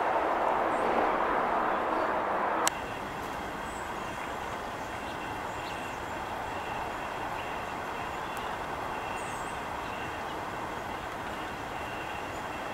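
Steady outdoor traffic noise. A louder vehicle engine hum cuts off abruptly with a click about three seconds in, leaving a quieter, even background hum with a few faint high chirps.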